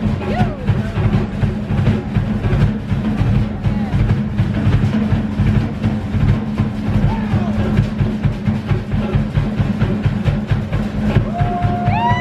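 Fast Polynesian show drumming with a rapid, steady beat. Near the end comes a long held call that rises and then falls.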